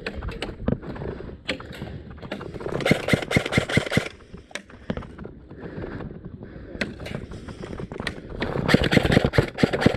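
Airsoft electric guns firing in rapid bursts, a run of sharp clacks about three seconds in and another starting near the end, with scattered clicks and rustling in between.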